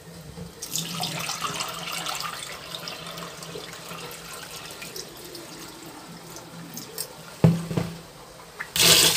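Washing water pouring out of a plastic bowl of horse gram into a steel sink as the seeds are drained, then a sharp knock about three-quarters of the way in, then the tap turned on and gushing near the end.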